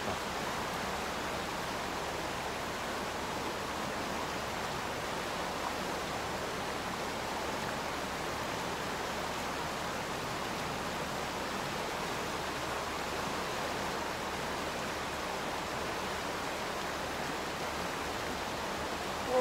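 Shallow river rushing over rocks in small rapids: a steady, unbroken rush of water.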